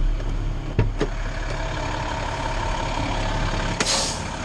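Fire engine's diesel engine idling steadily, heard from inside the cab, with a couple of clicks about a second in. Near the end comes a short burst of hiss-like noise as the cab door is opened.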